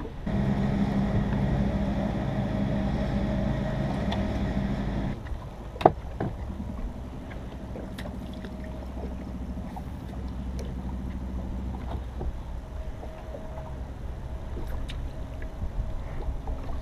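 Bow-mounted electric trolling motor running with a steady hum, at a higher setting for about five seconds, then cut back to a lower, quieter hum. A single sharp knock comes about six seconds in, with light scattered clicks from tackle on the boat deck.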